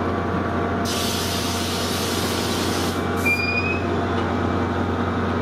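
NJ Transit Comet commuter coaches rolling slowly past over a steady low train hum. A high hiss of air starts about a second in and lasts about two seconds, followed by a brief high-pitched squeal.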